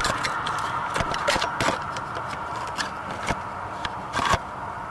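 Irregular light clicks, knocks and scrapes of handling, with a cluster of louder knocks about four seconds in, over a steady faint background noise.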